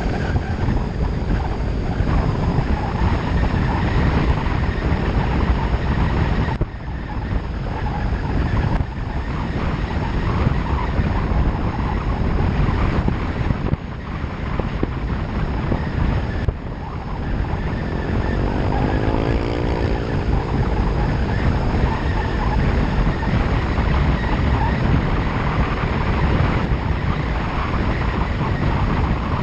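Wind rushing over the microphone of a hood-mounted GoPro on a vehicle driving across a dry lakebed, with engine and tyre noise underneath. The rush drops briefly a few times, and a short rising whine shows through about two-thirds of the way in.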